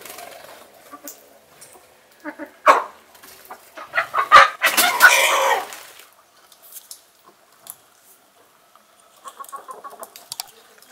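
Chickens clucking, with a rooster crowing once loudly for about two seconds near the middle. A sharp squawk comes just before the crow, and softer clucks follow near the end.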